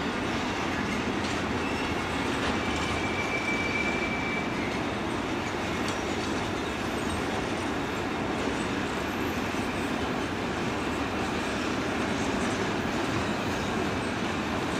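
Long freight train of covered wagons rolling past: a steady rumble and rattle of wheels on rail, with a brief high wheel squeal about two to four seconds in.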